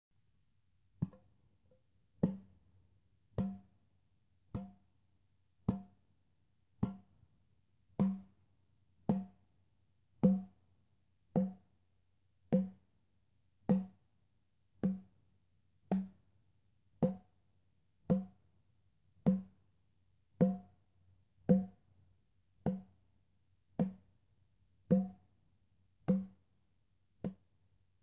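A single drum struck on a slow, steady beat, about one hit a second, each hit ringing briefly. The hits vary a little in loudness, as hand drumming does.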